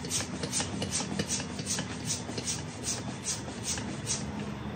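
Hand shock pump being worked to inflate an electric unicycle's air suspension: a steady run of short, airy strokes, about three to four a second.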